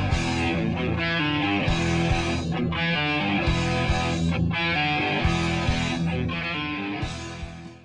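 Rock music with guitar, instrumental with no singing, fading out near the end.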